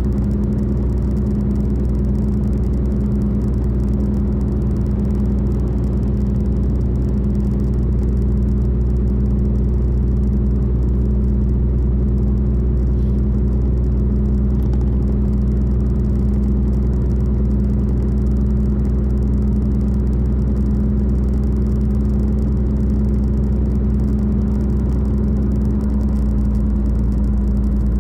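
Car driving at steady highway speed: an even low rumble of road noise under a constant engine hum.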